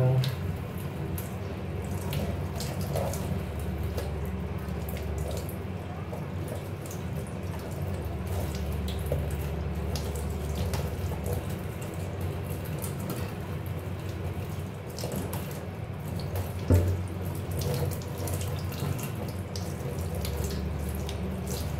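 Kitchen tap running steadily into a stainless steel sink, the water splashing over hands and a charred grilled eggplant being peeled under the stream. A single knock about three-quarters of the way through.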